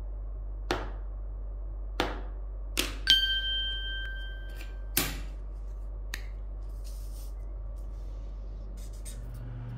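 A few sharp taps about a second apart, then a bright bell-like 'ding' about three seconds in that rings on for a second and a half, one more tap after it, over a steady low hum.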